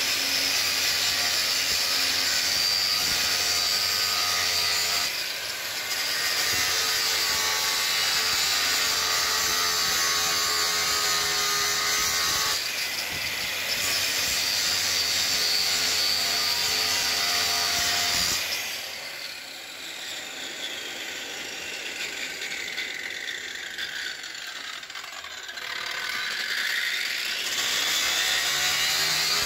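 Angle grinder with a 6 mm grinding wheel grinding a hollow into a thick steel blade clamped in a vise, a loud steady whine with two short lighter moments. About two-thirds through, the grinding stops and the whine slides down for several seconds, then climbs back as the wheel is brought back onto the steel near the end.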